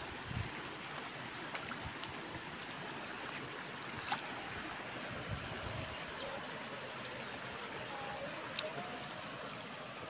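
Shallow water running and rippling over a stony bed, a steady rushing.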